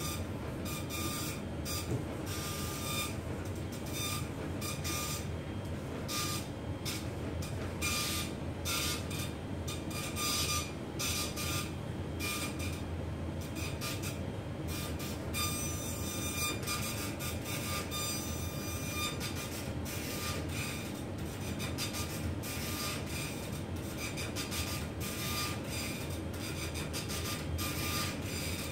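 Electric baby swing cradle running at a low swing setting with a 6 kg weight on board: a steady mechanical drone from its drive, with irregular faint clicks and short squeaks.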